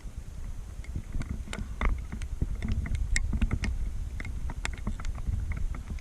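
Steady low rumble of wind and movement on the microphone, with scattered irregular ticks and taps.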